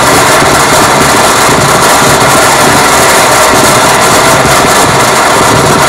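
Loud, steady electronic noise from a live sound-art performance on synthesizer and controllers through a PA loudspeaker: a dense, even noise across low and high pitches with a few faint held tones.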